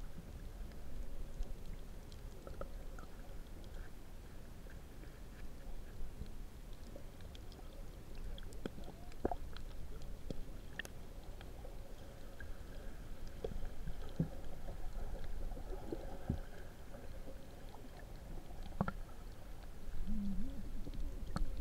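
Muffled underwater sound heard through a camera's waterproof housing: a steady low rumble of moving shallow seawater with scattered faint clicks and taps.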